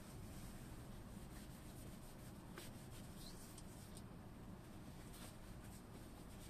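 Faint rustling and a few soft clicks as a paper towel and an aerosol can of silicone lubricant are handled, over a steady low background rumble.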